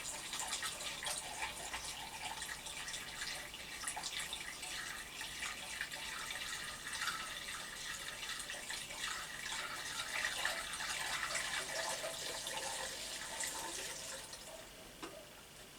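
Petrol being poured into a motorcycle fuel tank: a steady splashing trickle of liquid running into the tank, fading away near the end.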